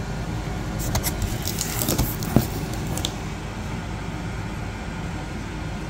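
Paper leaflets and cardboard packaging being handled, with a cluster of crinkles and light taps from about one to three seconds in, over a steady low background hum.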